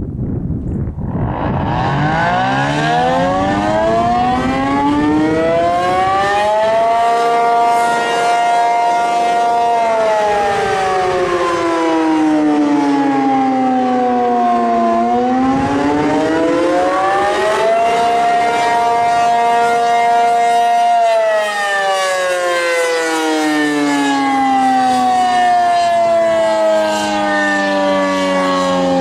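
ACA P-50 outdoor warning siren sounding the Attack signal, a rising and falling wail. It winds up from rest about a second in and holds a high steady note. It then falls to a low pitch, climbs back and holds again, and starts winding down near the end.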